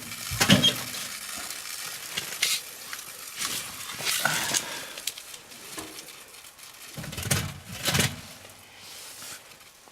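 Meat sizzling in a pot, the hiss slowly dying down, with scattered knocks and clinks of cookware and utensils.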